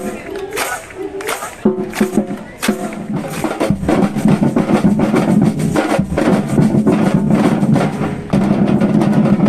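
Live band music with drums and percussion: a quick, even beat over held instrument notes, growing fuller about four seconds in.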